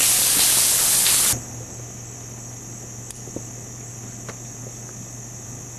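A loud steady hiss cuts off suddenly about a second and a half in. It gives way to a steady high-pitched drone of insects over a low hum, with a few faint ticks.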